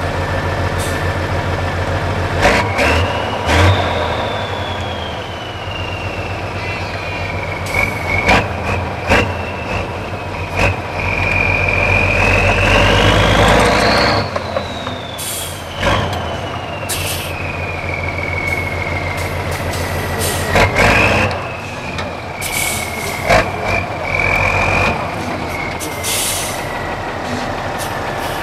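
Tatra 6x6 trial truck's diesel engine labouring up a steep sandy slope. A high whine climbs to a peak about halfway through, at full throttle, then slowly falls. Several short, sharp hisses or knocks come along the way.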